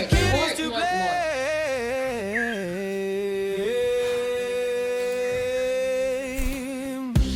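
Background song in a break: one singing voice with vibrato and no drums runs down through a string of wavering notes, then holds one long note for about three seconds. The beat comes back in at the very end.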